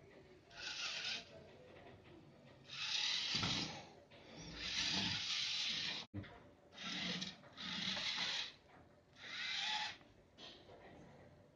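A homemade Arduino robot's small servo and geared wheel motors whirring in about six short bursts, each half a second to a second and a half long, as it turns and moves its arms on command.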